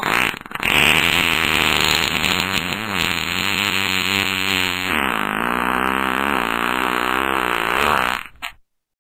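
A long fart sound effect: one continuous buzzing blast of about eight seconds whose pitch wobbles up and down. Its low rumble drops away about five seconds in.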